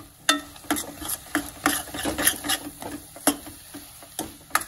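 Long steel ladle scraping and stirring thick carrot halwa (gajrela) in a stainless steel kadhai. It makes a quick run of scrapes and metal clinks, each stroke ringing the pan briefly, busiest in the first couple of seconds.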